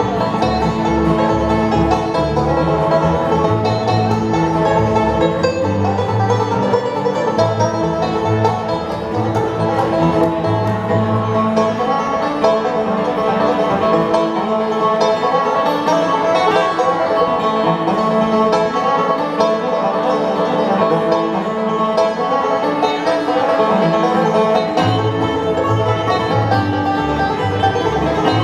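Live bluegrass band playing an instrumental passage: banjo picking with guitar over a moving bass line.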